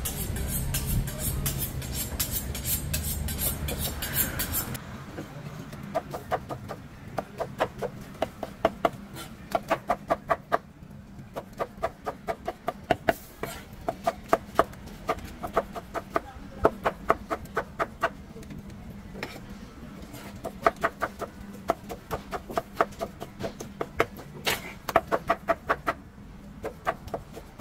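Large knife chopping tomatoes on a wooden cutting board, sharp taps in quick runs of several strokes a second with short pauses. Street noise is heard for the first few seconds before the chopping starts.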